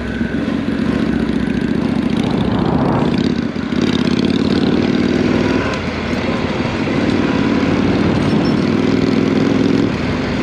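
Honda NC700X's parallel-twin engine running under way on dirt, with a steady rush of wind. The engine note breaks briefly about three and a half seconds in, then holds steady.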